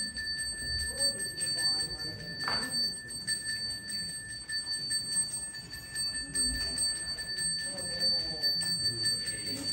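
A priest's hand bell (genta) rung without pause, a steady high ringing, with faint voices underneath.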